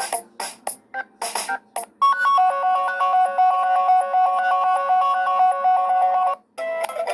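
Wileyfox Swift 2 Plus ringtones played one after another: a few short percussive beats, then from about two seconds in a synthesized melody of repeated notes that cuts off suddenly. Another ringtone starts just before the end.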